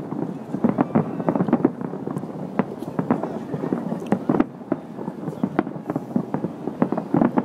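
Aerial fireworks bursting in rapid, irregular succession: a dense, unbroken run of bangs and crackles.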